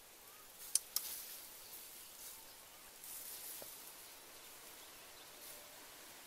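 Two sharp clicks close together, just under a second in, over faint rustling and hiss.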